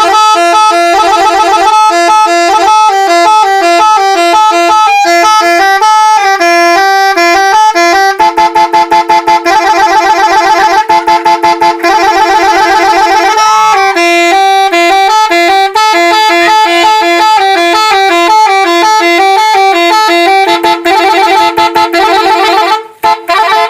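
A multi-trumpet 'telolet' vehicle horn playing a loud, rapid melody, its tones switching on and off in quick repeating patterns. It stops near the end.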